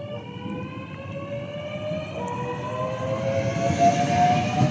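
Southeastern Class 465/466 Networker electric multiple unit accelerating, its traction motors giving a whine that climbs slowly in pitch, over the rumble of the train, growing steadily louder.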